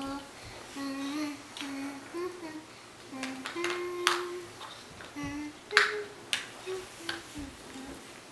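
A person humming a run of short notes that step up and down, while hard plastic Tinkertoy pieces click and clack as they are picked up and set down on the board. There are several sharp clicks, the loudest a little past the middle.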